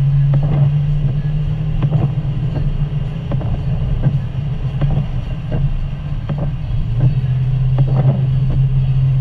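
Car driving on a wet, slushy highway, heard from inside the cabin: a steady low engine and tyre drone, with scattered light ticks of sleet and rain hitting the windshield.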